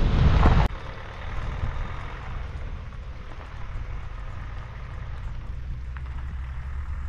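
Loud rumble of a van driving on a rough dirt road, heard from inside, that cuts off suddenly under a second in. Then a front-wheel-drive van's engine runs steadily as the van climbs a snowy dirt slope, heard from outside the vehicle as a low hum.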